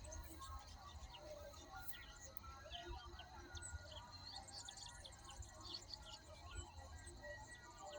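Several birds chirping and calling over one another in short, high, quick notes, with a low rumble underneath.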